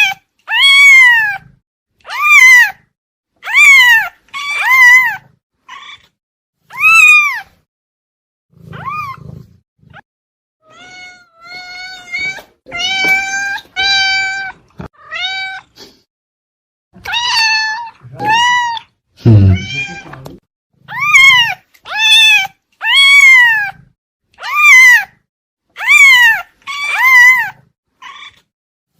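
Domestic cat meowing over and over, mostly short meows that rise and fall in pitch, about one a second, with a run of flatter, steadier-pitched calls midway.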